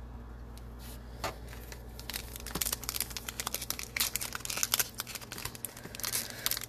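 Foil trading-card pack (Panini Prizm basketball) crinkling and tearing open, a dense run of sharp crackles starting about two seconds in.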